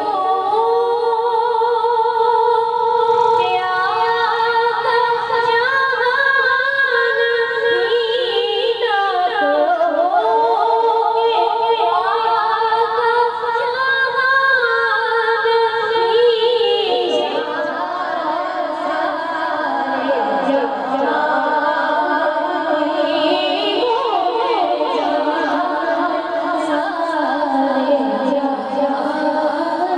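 Women singing a naat, a devotional poem in praise of the Prophet, without instruments, in long held and ornamented melodic lines. The melody moves to a lower range about halfway through.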